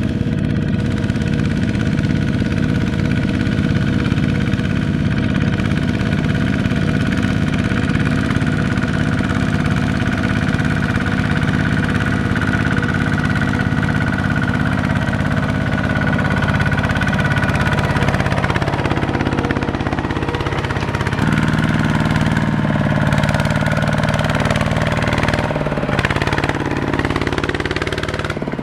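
Tractor's diesel engine running steadily, then changing speed several times in the last ten seconds or so.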